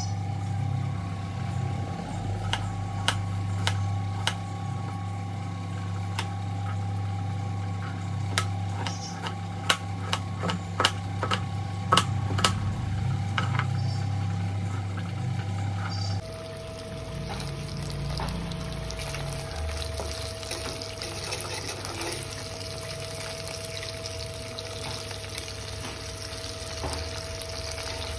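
Kitchen knife cutting a potato held in the hand, with a steady hum and irregular sharp clicks as pieces are cut off. About midway it changes to small whole turmeric-coated fish frying in oil in an iron kadai: a steady sizzle.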